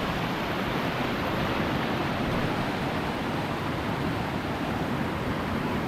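Waterfall's steady rush of falling water, an even unbroken noise.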